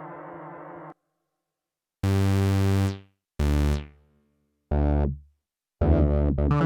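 Fred's Lab Manatee synthesizer playing a preset. A held sound cuts off about a second in. After a short silence come three separate notes, each with a bright top that dies away quickly. Near the end a quick run of notes follows.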